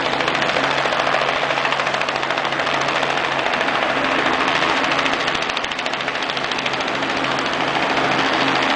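Cruise ship horn holding a long, steady low note, with a second, higher horn note joining about four seconds in. Both sit under a loud, steady rushing noise with a fast flutter.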